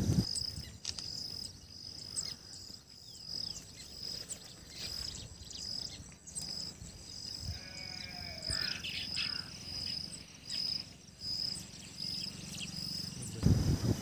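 Baya weaver colony ambience: short, scattered bird chirps over a steady, pulsing high-pitched trill, with one brief wavering call about eight seconds in.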